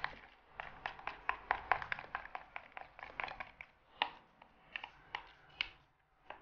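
Thin flour batter being beaten by hand in a mixing bowl: a quick, irregular run of small clicks and taps as the utensil strikes the bowl, with soft wet stirring.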